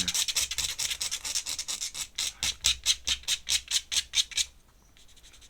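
Fingertips rubbing ink back and forth into drawing paper to smudge it: a fast run of short scratchy strokes, about five a second, that stops about four and a half seconds in.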